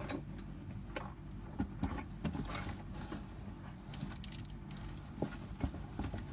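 Scattered light clicks and taps of a gouging torch and its parts being handled, over a steady low hum.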